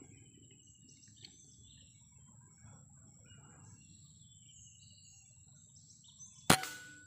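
Birds chirping over a steady high whine, then a single sharp, loud rifle shot about six and a half seconds in.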